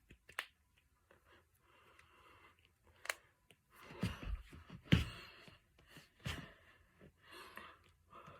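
Finger joints and knuckles cracking: small sharp pops early on and about three seconds in, then louder, deeper pops about four, five and six seconds in, the one at five seconds the loudest. Soft breathy noise between the pops.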